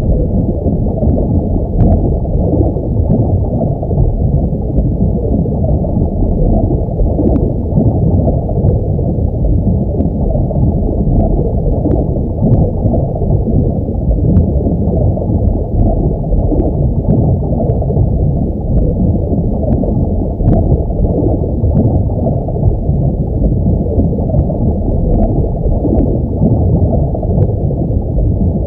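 Underwater ambience sound effect: a steady, muffled low rumble of water, with faint clicks now and then.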